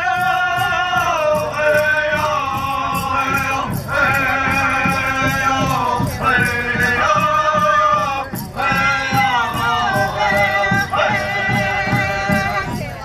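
Powwow drum and singers: voices singing together in phrases that slide down in pitch, over a steady drum beat.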